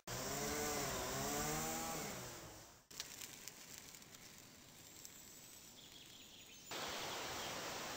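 A motor's hum, rising and falling in pitch for about three seconds before cutting off abruptly. Then faint outdoor background, and from near the end a louder steady rushing noise.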